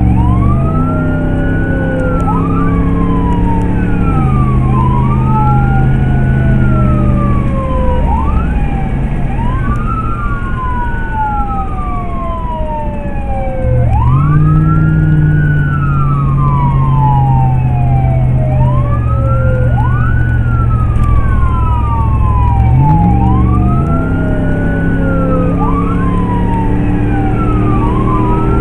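Emergency-vehicle electronic siren on wail, heard from inside the cab, rising and falling in long sweeps of about four seconds each. The vehicle's engine runs underneath, stepping up and down in pitch.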